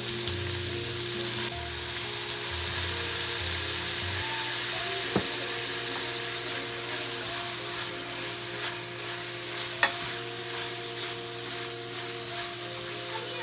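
Shredded chicken, onion and green pepper sizzling in oil in a stainless steel pot, stirred with a spatula. Two sharp knocks stand out, about five and ten seconds in.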